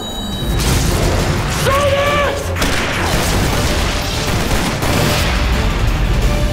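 Dense action-trailer soundtrack: music under booms and what sounds like bursts of gunfire. A short, wavering shrill cry comes about two seconds in.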